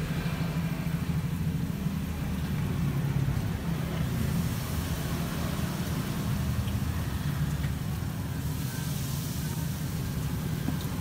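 A steady low engine rumble that holds level throughout, with a faint hiss above it.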